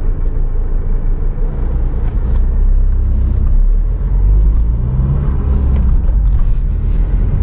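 Steady low rumble inside the cabin of a Tata Harrier on the move, road and diesel engine noise, growing a little louder about two seconds in.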